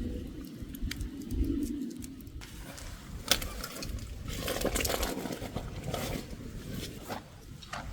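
A dove cooing in low pulsing notes for about two and a half seconds, then an abrupt cut to scattered clicks and rustling.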